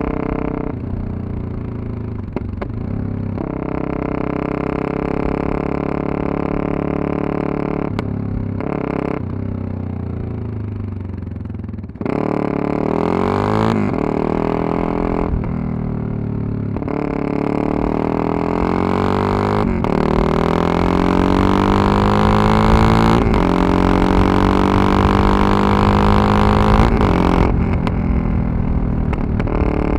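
Yamaha MT-03's 660 cc single-cylinder engine under way, with the rider's own riding making the changes in sound. For about the first twelve seconds it runs fairly steady with a few brief dips as the throttle is eased. From about twelve seconds in it accelerates hard through several gears, its pitch rising with a short break at each shift, and eases off near the end. A low wind rumble on the microphone sits under the engine.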